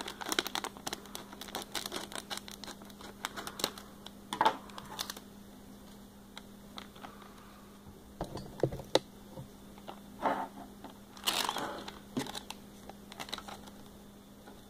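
Plastic blind-bag packaging of a Thomas & Friends Minis toy crinkling as it is torn open and handled. The crackling is dense for about the first five seconds, then comes in scattered handfuls of crinkles.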